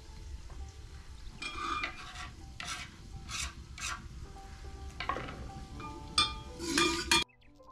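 Chopped green chillies scraped off a wooden board into a metal pot, then a metal ladle stirring in the pot: a run of separate scraping strokes, the loudest near the end, cutting off abruptly about seven seconds in. A low steady rumble and faint steady tones of background music run underneath.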